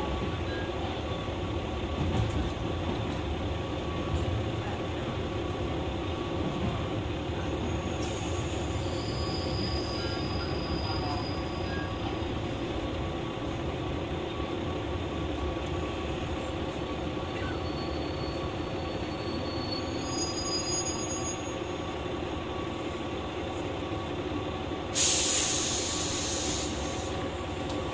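Inside a JR West KiHa 120 diesel railcar: a steady diesel engine drone and rumble, with faint high tones now and then. About three seconds before the end, a sudden loud hiss lasts about two seconds.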